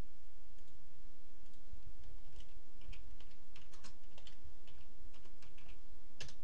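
Typing on a computer keyboard: a scattered run of single keystrokes as a short command is typed, over a steady low hum.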